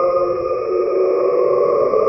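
Synthesized dark horror ambience: a steady eerie drone of layered sustained tones, clustered in the midrange with thinner higher bands, dipping slightly in level about half a second in.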